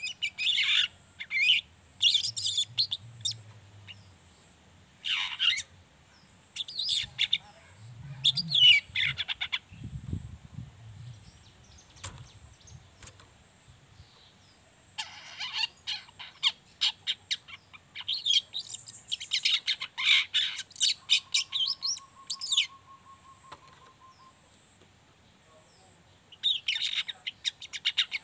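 Juvenile long-tailed shrike (cendet trotol) singing its rapid, high chattering twitter ('ngriwik') in short bursts, with pauses of a few seconds between phrases.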